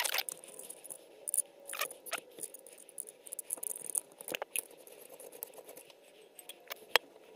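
A small wrench turning and tapping a bolt on a metal fixture plate: scattered metallic clicks and light scrapes, with one sharp click about seven seconds in.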